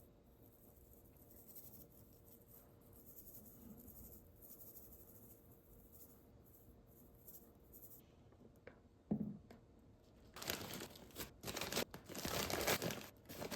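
A single knock, then about three seconds of loud crinkling and tearing, as of packaging or wrap being handled.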